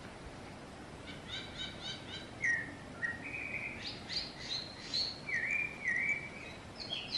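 Wild songbirds singing. About a second in comes a quick run of short repeated notes, followed by clear whistled phrases, each note held briefly and repeated, over a faint outdoor hush.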